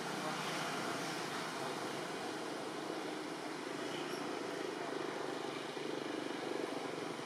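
Steady, even drone of distant engine noise over a constant background hiss.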